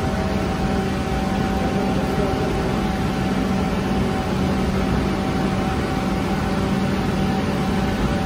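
Steady drone of bakery machinery: an even rushing noise with a low hum and a higher steady tone, unchanging throughout.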